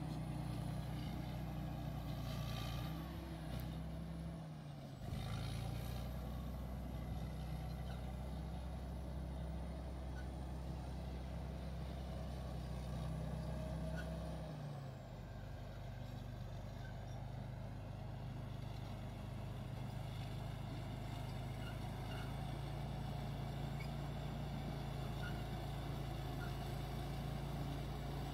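Diesel engine of a Caterpillar crawler bulldozer running steadily. Its note changes pitch a few times, briefly between about three and five seconds in and again about halfway through.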